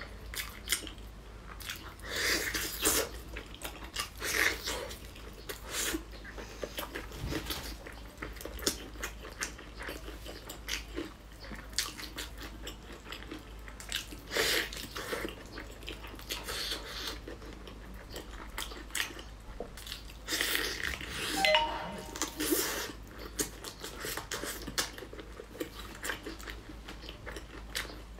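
A person biting and chewing braised pork hock, in irregular mouthfuls of wet, clicky chewing with louder bites now and then.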